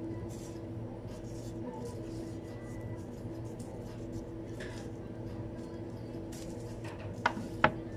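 Gloved hands handling sushi rolls on a cutting board, soft rustles and taps over a steady low hum, with two sharp knocks in quick succession near the end.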